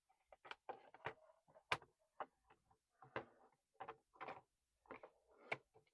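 Faint handling noise: irregular light clicks and taps of the opened plastic tool housings and parts being moved about, two sharper clicks standing out, one a little under two seconds in and one near the end.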